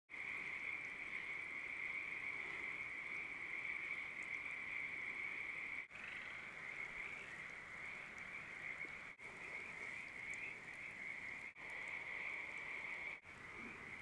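A chorus of many Pacific tree frogs calling steadily together, their mating calls blending into a dense, high chorus broken by a few brief gaps.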